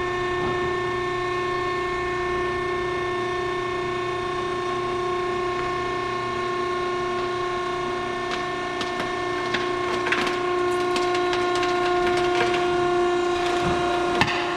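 Cardboard baler running its auto cycle: the steady whine of its hydraulic pump motor, a held tone. From about eight seconds in, cracks and snaps join it as the platen crushes the cardboard.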